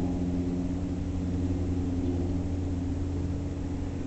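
Steady low mechanical hum with a few fixed tones, easing off slightly near the end.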